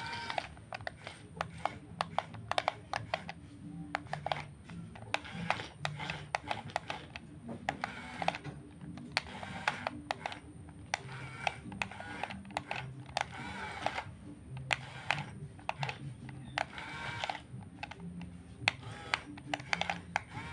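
Radio-controlled excavator and bulldozer models at work: small electric motors and gearboxes humming in short runs under many irregular clicks and ticks.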